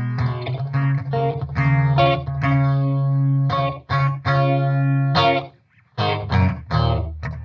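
Electric guitar played through a Stewmac Lightcycle Phasor II, a Mu-Tron Phasor II clone phaser pedal, into a Mesa Boogie Badlander amp. Sustained chords and picked notes ring out, with a short break a little over five seconds in before the playing starts again.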